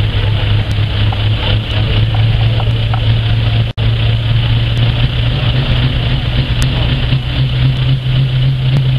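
Competition pulling vehicle's engine running hard at full throttle during a pull, a loud steady drone whose pitch creeps upward over the seconds. The sound cuts out for an instant about four seconds in.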